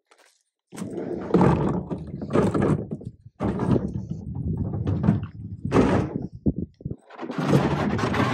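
Wheeled plastic trash bin rolled over concrete and pavement: a rough rolling noise in three stretches with short gaps, and a few knocks as the bin and its lid bump.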